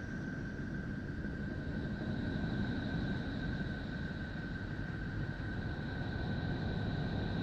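Space-sound drone of the kind presented as the sound of the solar system's planets: a low rumbling noise under a steady high whistling tone, joined by a second, higher tone about two seconds in.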